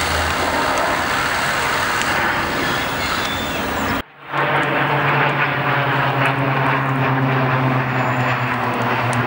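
Loud rushing outdoor noise with an engine running steadily under it. The sound drops out briefly about four seconds in, then resumes with a steady low engine hum standing out.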